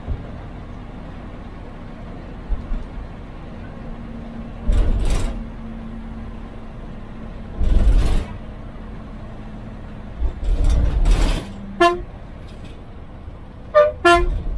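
Bus engine running steadily, heard from inside the cab at highway speed, with three loud rushes of noise in the middle. Near the end comes a short horn toot, then a quick pair of toots.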